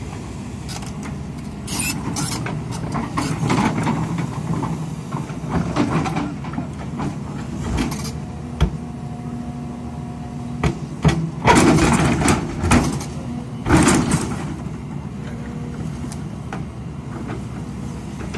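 Hidromek 300 tracked excavator's diesel engine running under digging load as the bucket cuts into soil and stones. Scrapes and sharp knocks of the steel bucket come through over the steady engine hum, loudest in a cluster a little past the middle.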